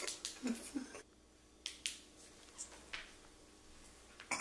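A handful of short, sharp clicks, spread a second or so apart, over quiet room tone.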